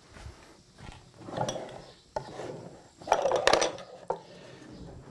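Router table fence being handled: scraping and clattering of its metal parts against the table top. There are two bursts, the louder one about three seconds in, with a few clicks between them.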